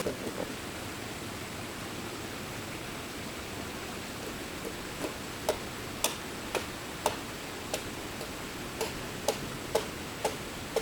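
Steady background hiss, then from about four seconds in a run of sharp light taps or knocks, roughly two a second.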